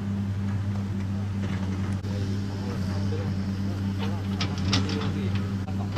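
An engine running steadily with a low, even hum that does not change pitch. Faint voices can be heard in the background.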